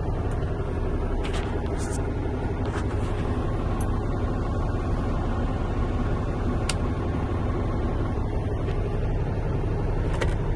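Truck's diesel engine idling steadily, heard from inside the cab, with a few faint clicks.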